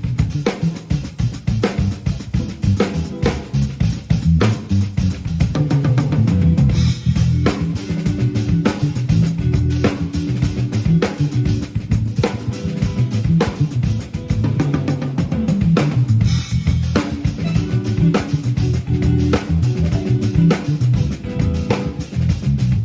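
A band playing live: a drum kit keeping a steady groove of kick, snare and rimshot hits, with bass guitar underneath and sustained guitar notes coming in about eight seconds in.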